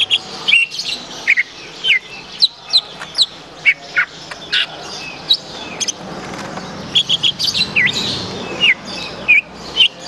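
Caged songbirds singing: a steady run of quick, sharp chirps and short downward-sliding whistles, many notes a second, over a steady background hiss.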